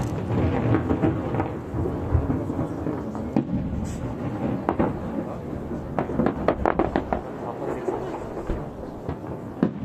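Aerial firework shells bursting over the sea in quick succession: continuous rolling booms, with a dense run of sharp cracks and crackles about six to seven seconds in.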